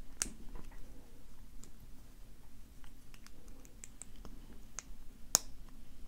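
Small metal clicks and scrapes of a C-clip remover working at a stiff retaining C-clip on a brass padlock cylinder, with a sharp click just after the start and a louder one near the end.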